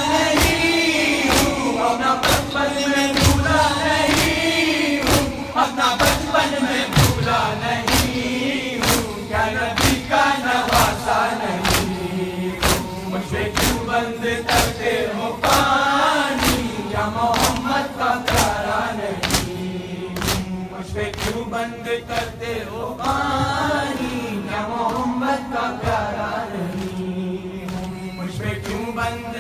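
A crowd of men chanting a noha, a mourning lament, together while beating their chests in matam. The hand-on-chest slaps land in a steady rhythm of about three every two seconds under the sung lines.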